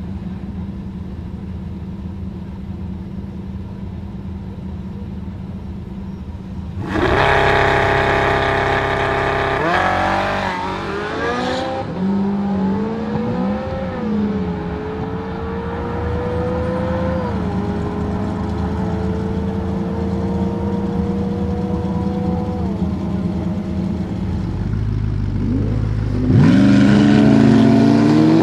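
A Pagani Huayra's twin-turbo V12 and a Porsche 918 Spyder idle on the start line, then launch hard about seven seconds in; the engine note climbs, drops back at several upshifts and fades as the cars pull away. Near the end a Koenigsegg Regera launches close by, loud and climbing in pitch.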